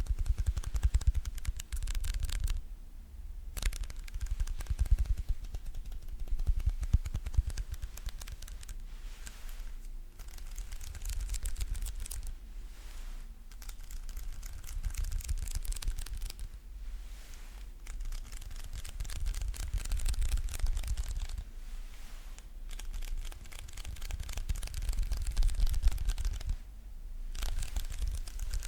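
Fast sticky crackling and peeling sounds from fingers tapping on and pulling off a tacky surface, in quick runs broken by a few short pauses.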